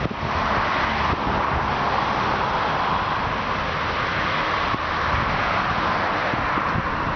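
A car running steadily, with a constant rushing noise and a low rumble.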